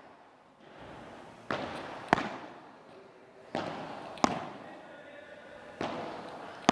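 Padel rally: a ball struck by padel rackets and bouncing on the court, sharp pops coming in pairs, a softer one and then a louder one about two-thirds of a second later, repeating about every two seconds, each ringing briefly in the hall.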